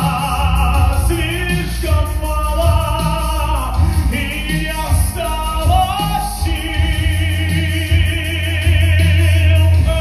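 A man singing into a microphone over music with a steady deep bass, holding a long note with vibrato through the second half.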